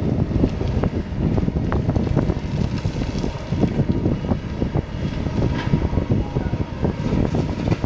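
Kobelco 220 hydraulic excavator's diesel engine running steadily under work, with wind buffeting the microphone.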